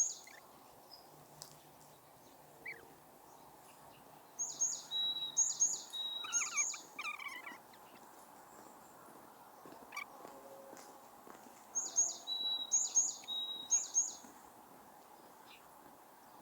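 A small songbird sings two bouts of a repeated high-pitched phrase, each a short quick note followed by a held, steady note, a few seconds apart. A second bird chirps briefly near the end of the first bout, over faint outdoor background noise.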